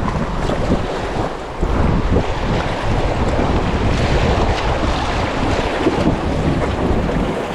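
Rafters paddling an inflatable raft down a river: paddles splashing and water rushing around the boat, with wind buffeting the microphone.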